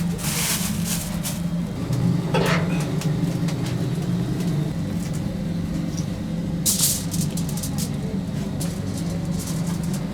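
A steady low mechanical hum, like a running motor or passing traffic, with short noisy bursts at the start and about seven seconds in.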